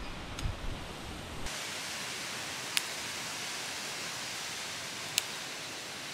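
Low rustling and handling of a leafy branch for a second and a half, then an abrupt switch to a steady, even hiss. Short sharp high clicks come about every two and a half seconds, twice in the hiss.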